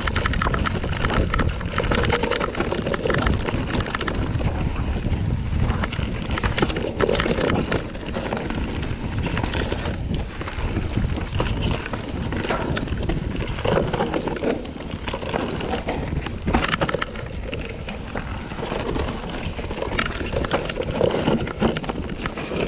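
Enduro mountain bike ridden fast down a dirt forest singletrack: tyres running over dirt and leaves, with frequent short rattles and knocks from the bike over bumps and wind buffeting the microphone.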